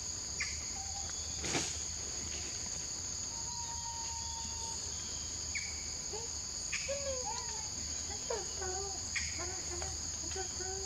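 Steady high-pitched insect drone in two bands, with a sharp click about a second and a half in and a run of short, wavering animal calls from about six seconds on.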